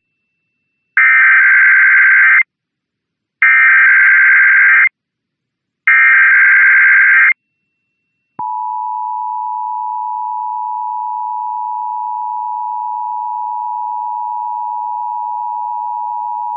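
Emergency Alert System test alert as relayed on broadcast radio. It opens with three SAME digital header data tones, each about a second and a half long with a short gap between them. After a pause, the steady two-tone EAS attention signal starts about eight seconds in and holds, marking the start of the required monthly test.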